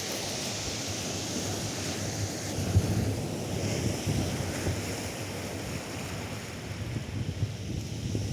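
Atlantic surf washing onto a sandy beach, a steady hiss of breaking waves, with wind buffeting the microphone in low rumbling gusts.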